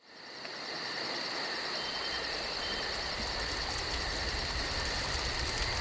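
Insects chirping in a steady chorus: a high, continuous trill with a fast, even pulsing above it, over a low rumble. It fades in during the first half second.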